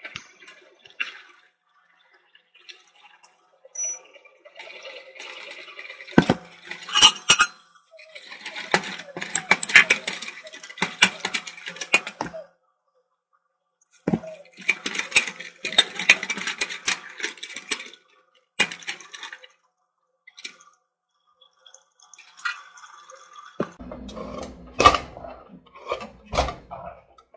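Wooden stirring stick knocking and scraping against a metal pot as eba (cassava garri in hot water) is stirred and mashed: bursts of rapid clatter with short pauses, then a few heavier knocks near the end.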